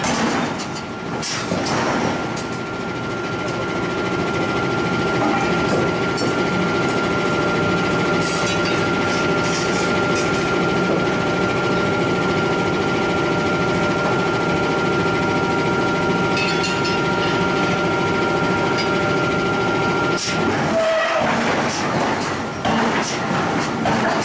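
Forge shop machinery running with a steady drone and a thin high whine. Sharp metal strikes from the forging hammer come in the first two seconds and again near the end.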